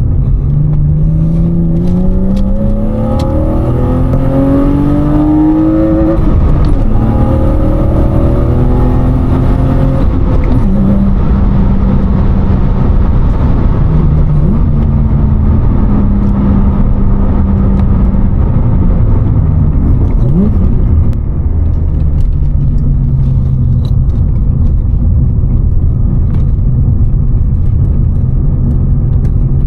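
BMW E36 325i's M50B25 straight-six with a Supersprint race exhaust, heard from inside the cabin with the window up. It pulls up through the revs for about six seconds, then runs at a fairly steady engine speed with small changes, and starts climbing again right at the end.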